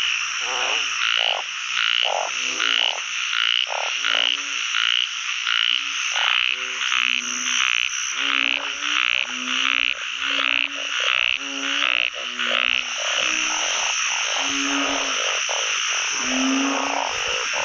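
A dense frog chorus: many narrow-mouthed frogs (อึ่ง) and other frogs calling together, with short low croaks repeating about twice a second over a continuous high-pitched trill. The low croaks thin out in the last few seconds.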